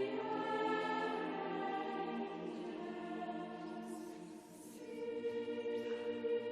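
Classical choral music: a choir holding sustained chords, dipping briefly about four and a half seconds in before moving to a new chord.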